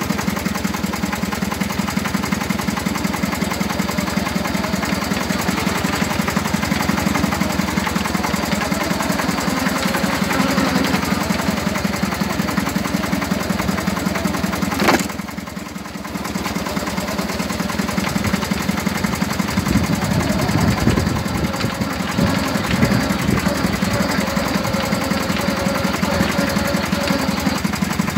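Coventry Climax TMD forklift's CDMQ two-cylinder engine running under way, a fast, even pulsing beat. About halfway through there is one sharp knock, after which the engine runs briefly quieter before picking up again.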